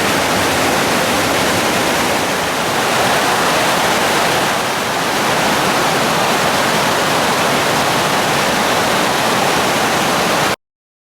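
Fukiware Falls, a wide, low waterfall on the Katashina River, rushing steadily. The sound cuts off suddenly near the end.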